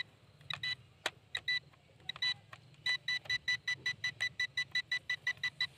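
A toy RC drone's handheld remote controller beeping. A few scattered short beeps and clicks come first, then from about three seconds in a fast, even run of short high beeps, four to five a second. The drone will not start, and the owner puts this down to a flat battery.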